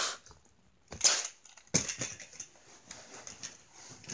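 A child's toy-fight play with small toy vehicles on a leather couch: a few short hissing, scuffing bursts and light clicks.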